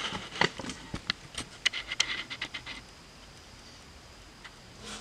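A scatter of light clicks and handling noises for the first two or three seconds, then quiet room tone.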